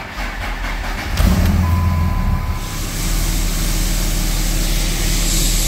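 A 2004.5 Ram 3500's 5.9 L Cummins turbo-diesel turns over on the starter for about a second, then fires with a jump and settles into a steady idle. The start has a little jump to it but turns over fast, just after a new crankshaft position sensor plug was fitted. A short steady beep sounds just after it catches.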